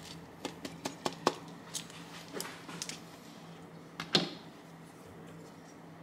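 Utensils clicking and knocking against dishes in a quick irregular run, then one louder knock about four seconds in, over a faint steady hum.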